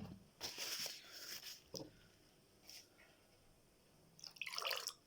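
Faint kitchen handling sounds while a lemon drink is prepared: a few light clicks and rustles, then a short hissing rush near the end.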